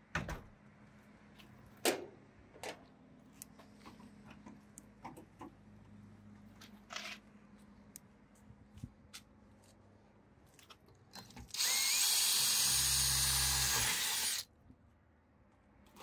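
Cordless drill boring a lever post hole through the door via a drilling jig, running steadily for about three seconds near the end and then stopping abruptly. Before it come scattered clicks and knocks as the jig and drill are set in place.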